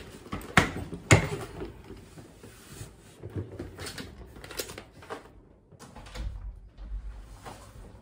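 A grey hard-shell suitcase being handled: two sharp clacks about half a second and a second in, then a scatter of lighter knocks and bumps, and a low rumble from about six seconds in.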